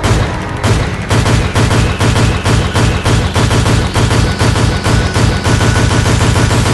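Background music with rapid, heavy drum hits over a pulsing bass.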